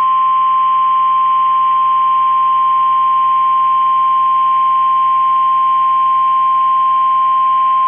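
NOAA Weather Radio warning alarm tone: one loud, steady, unbroken tone of about 1050 Hz, the alert that signals a warning broadcast is about to follow. A faint hum lies beneath it.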